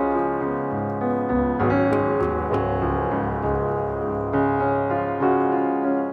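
Background piano music: held notes and chords that change every second or so.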